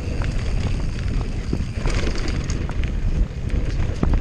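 Downhill mountain bike descending a dry dirt trail at speed: wind buffeting the camera microphone and tyres rolling over dirt make a steady low rumble, with frequent sharp clicks and knocks of the bike rattling over bumps.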